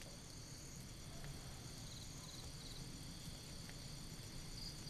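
Night ambience of crickets and other insects chirping steadily, with a few brief trilled chirps standing out near the middle.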